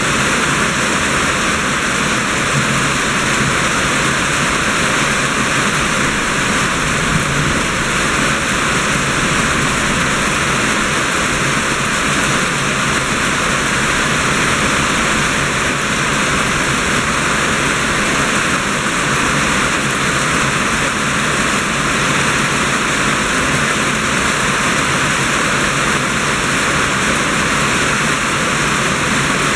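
Steady rain falling, an even unbroken hiss with no break or change.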